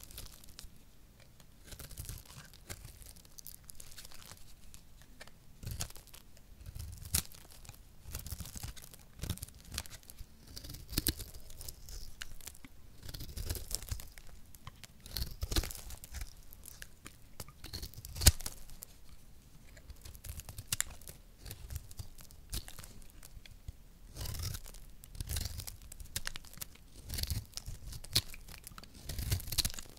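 A small knife blade shaving curls and flakes off a hard, dry soap ball, in many short, crisp, crackling scrapes and crunches. One louder snap comes a little past halfway.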